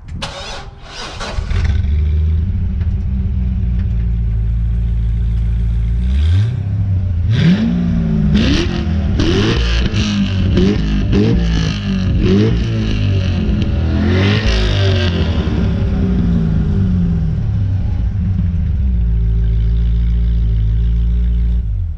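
Corvette C6 Z06's 7.0-litre LS7 V8 on its stock exhaust, without the turbo whistles fitted. It idles steadily, then gets about eight quick throttle blips, each rising and falling in pitch, and settles back to idle.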